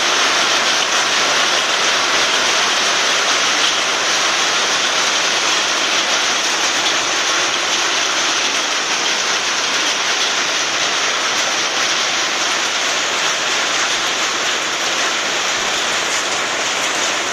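Heavy rain mixed with falling hailstones, a loud steady hiss of drops and ice pellets striking surfaces.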